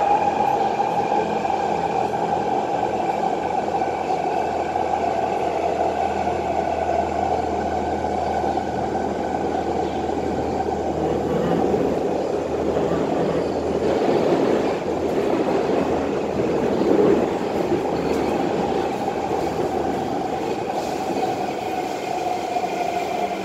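Kawasaki C151 metro train running with its PMSM traction motors, heard from inside the car. A whine of several steady tones at the start fades into wheel and track rumble, which swells about two-thirds of the way through. The whine tones return near the end.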